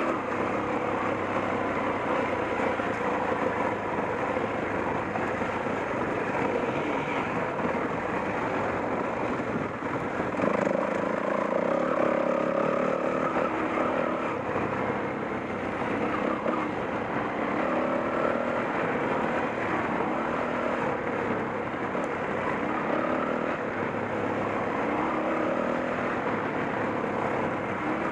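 Off-road motorcycle engine running under way, its revs rising and falling over steady riding noise.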